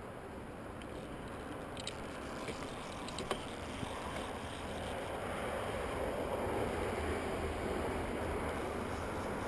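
Steady rushing outdoor noise, growing slightly louder toward the end, with a few light clicks between about two and four seconds in.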